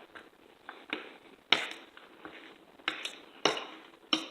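Cutlery clinking against a plate in an irregular string of sharp clicks while eating, the loudest about a second and a half in.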